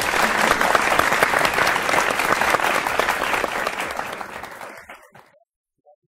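Audience applauding, a dense patter of many claps that fades out about five seconds in.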